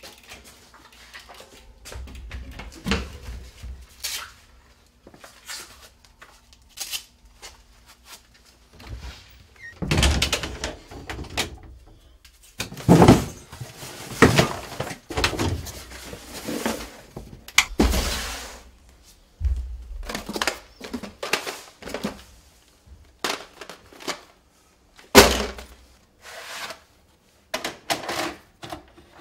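A string of irregular thunks, knocks and clatter from things being handled and moved about, ending with a videotape being pushed into a VCR.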